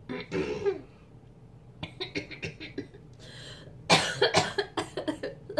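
A person coughing and spluttering, as if choking: a short cough near the start, a few small ones after it, then a louder fit of coughs about four seconds in.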